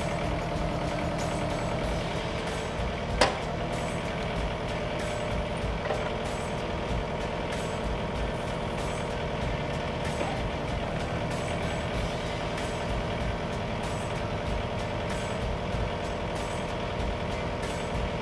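YANMAR SV40 mini excavator's diesel engine running steadily while the hydraulic thumb is cycled open and closed to bleed air from the newly plumbed thumb circuit. There is a single sharp knock about three seconds in.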